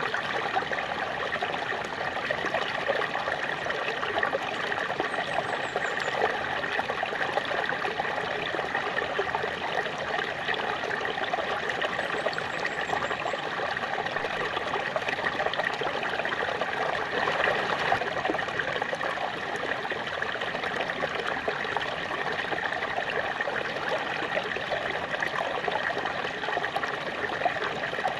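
Small waterfall: water splashing and trickling steadily without a break.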